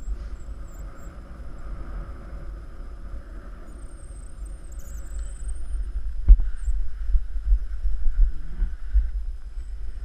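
Wind buffeting the microphone of a paraglider pilot's camera during a low glide, a steady rumble with a sharp knock about six seconds in, after which the rumbling gets louder.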